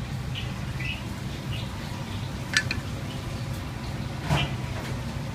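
Two knocks at a wooden chopping block, a sharp click about two and a half seconds in and a duller knock just after four seconds, over a steady low background hum.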